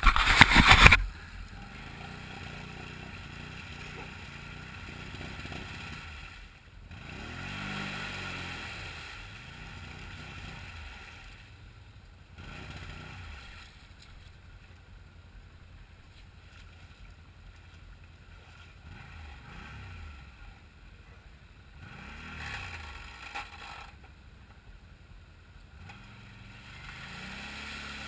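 ATV engine revving in repeated surges, its pitch rising and falling, as the quad churns through deep muddy water, with sloshing and splashing underneath. A loud rush of noise fills the first second.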